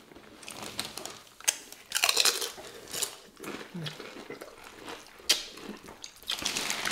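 Chewing with crisp crunches of tortilla chips, several separate bites and snaps spread through the few seconds.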